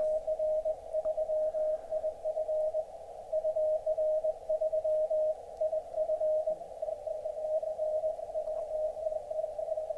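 Morse code (CW) from amateur stations calling a DX station in a 17-metre pileup, received on an Elecraft K3 transceiver: a keyed tone beeping in dots and dashes over a narrow hiss of band noise.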